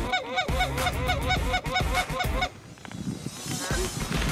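Geese honking in a rapid, overlapping run of short calls for about two and a half seconds, then falling away.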